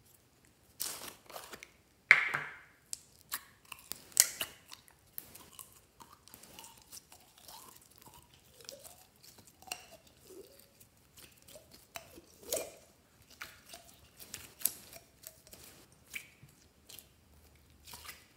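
Green glitter slime squeezed and stretched by hand, with sticky crackles, squelches and small pops. There are a few sharp plastic clacks in the first few seconds as the slime's tub is handled and opened; the loudest comes about two seconds in.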